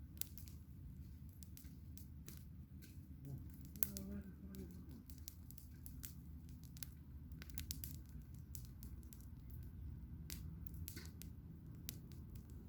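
Campfire crackling: irregular sharp snaps and pops of burning wood over a low, steady rumble.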